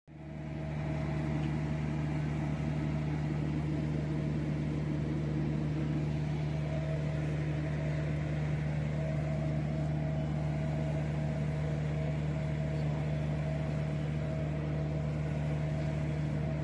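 Steady mechanical drone of aircraft ground machinery beside a parked C-130J transport plane: a constant low hum with a fainter, higher steady tone above it, unchanging throughout.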